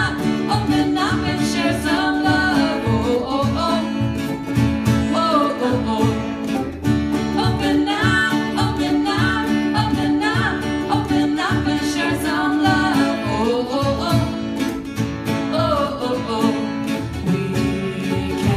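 Live country-style song: plucked and strummed acoustic guitar with a singing voice carrying the melody.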